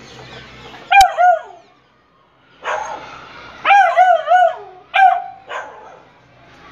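Beagle puppy barking and yipping in short bursts: a pair of barks about a second in, a quick run of three or four in the middle, and one more a second later. A single sharp click comes just as the first bark starts.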